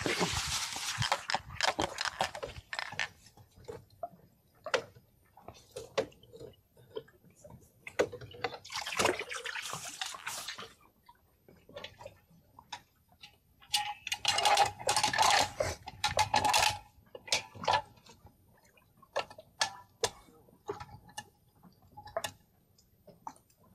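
Water splashing in three bursts, about 1.5, 2 and 3 seconds long, with scattered clicks and knocks between them.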